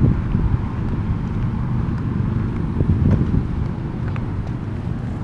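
LEGO Technic remote-control car driving over asphalt, powered by two Power Functions L-motors: an irregular low rumble of its wheels and geartrain, carried through the chassis to the camera mounted on it.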